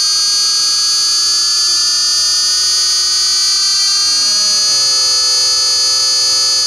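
Electronic science-fiction sound effect: a loud, steady, high buzzing drone made of many stacked tones, while lower tones slowly glide, one sinking steeply about four to five seconds in as others rise.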